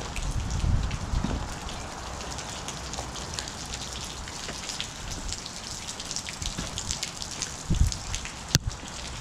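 Steady patter of rain and drips, a dense run of small ticks. A few low thumps come in the first second and again near the end, with one sharp click shortly before the end.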